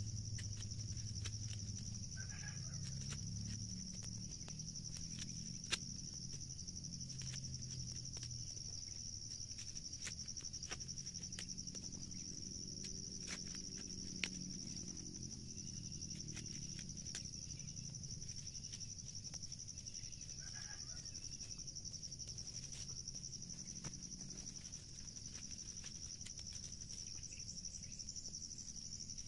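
A steady high-pitched drone of insects, with scattered small clicks and a low rumble that fades over the first few seconds.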